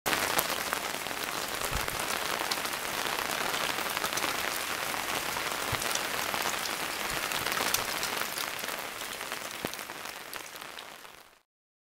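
Heavy cloudburst rain pouring down: a dense steady hiss of rain with sharp individual drop impacts, fading out near the end.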